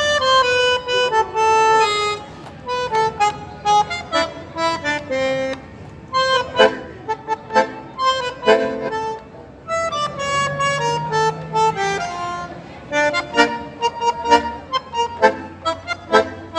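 Solo bandoneón playing: a flowing melody line at first, then short, clipped chords, with a low note held for about two seconds near the middle.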